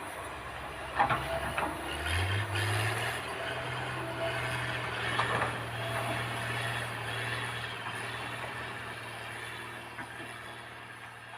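Diesel engine of heavy earthmoving equipment running steadily, its pitch stepping up about two seconds in, with a few sharp metal knocks. The sound dies away near the end.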